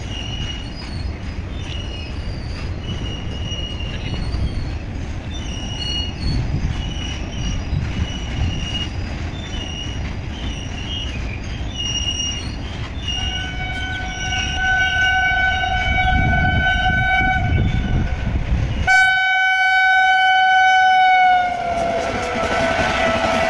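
Train rumble with short, intermittent high squeals, then a train horn sounding long and steady from about halfway through. Near the end its pitch drops as the passenger train passes, and the rush of passing coaches follows.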